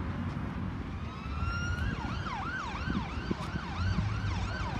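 Siren sounding: a rising wail for about a second and a half, then switching to a fast yelp that sweeps up and down about three times a second.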